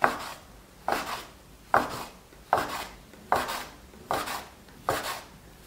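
A plastic dough scraper chopping down through a roll of soft dough and striking a wooden board, cutting it into equal pieces: seven sharp knocks at a steady pace, about one every 0.8 seconds.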